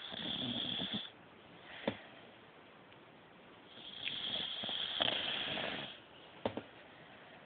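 Sleeping puppy snoring: two snoring breaths, one right at the start and a longer one about four seconds in that lasts about two seconds, with a couple of short clicks in between.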